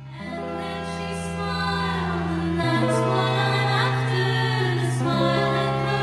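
Sped-up song built on sustained omnichord chords that change about every two and a half seconds, with a singing voice over them.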